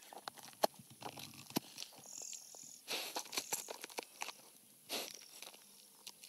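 Honey badger's long claws scratching and scraping on rock and soil: a run of small scratches and clicks, with a couple of longer scrapes. A short high whistling note sounds about two seconds in.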